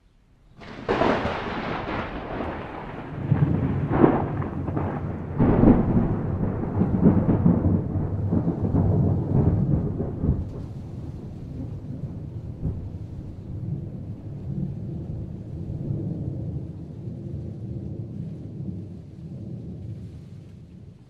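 Thunder: a sudden crack about a second in and more sharp cracks around four and five and a half seconds, then a long rolling rumble that slowly fades.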